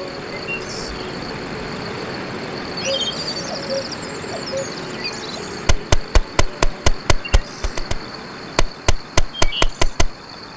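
Forest background with a faint chirp or two. A little past halfway a hammer starts driving nails in quick, sharp strokes, about four a second, pausing briefly before a second run.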